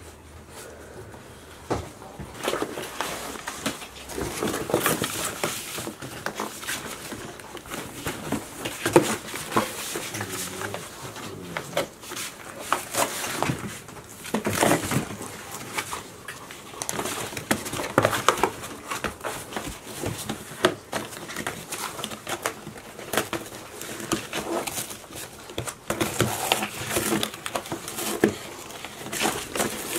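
Two-month-old golden retriever puppies vocalizing in rough play, with cardboard crackling and tearing as they bite and pull at boxes. There are many short sharp noises throughout.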